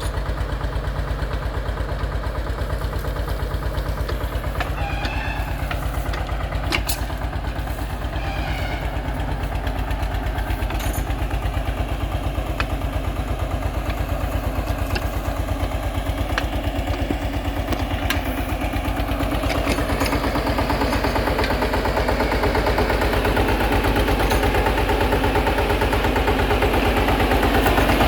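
Eicher 242 tractor's 25 HP single-cylinder diesel engine running with a rapid, even thump, much like a diesel Bullet motorcycle. It grows louder about twenty seconds in.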